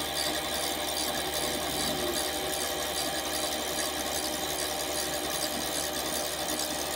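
Chinese mini lathe running steadily under power feed while it takes a threading pass on a steel rod. The motor and gear train give a steady whine of several fixed tones over a hiss.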